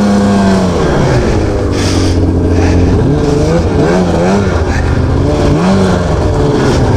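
Two-stroke engine of a 2000–2002 Ski-Doo MXZ snowmobile running under way on the trail. Its pitch drops about a second in as the throttle eases off, then rises and falls a few times as the rider works the throttle.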